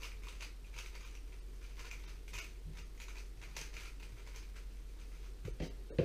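Rubik's cube being turned quickly by hand: irregular runs of short plastic clicks from the layer turns, a few a second, with a louder thump near the end.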